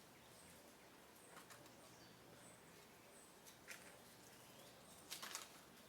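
Near silence with a few faint, short crackling clicks, a small squirrel nibbling at its snack, the most distinct cluster near the end; faint high chirps sit in the background.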